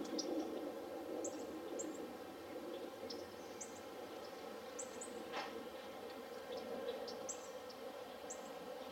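Small birds giving scattered short, high chirps, about one a second, over a steady low outdoor background hum.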